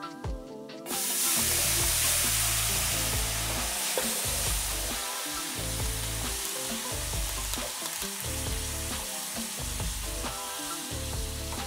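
Soy sauce, kimchi brine and sesame oil poured into a hot pan of kimchi fried rice, breaking into a loud sizzle about a second in that keeps going and slowly eases while a wooden spatula stirs and scrapes the rice.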